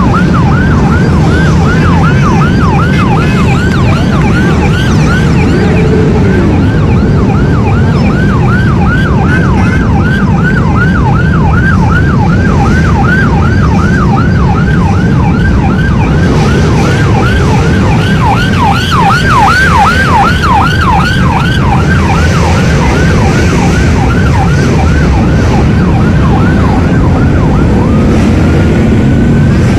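Electronic siren in fast yelp mode, sweeping up and down about three to four times a second, over a dense low rumble of street traffic and crowd. Near the end the fast yelp stops and one slower wail follows.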